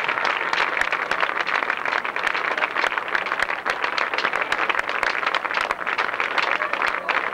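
Crowd applauding, a dense steady patter of hand claps with a din of voices mixed in.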